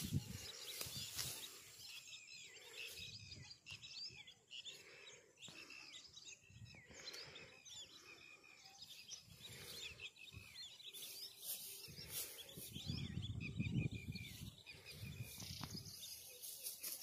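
Small birds chirping, many short quick calls throughout, over a steady outdoor background, with a low rumble swelling about thirteen seconds in.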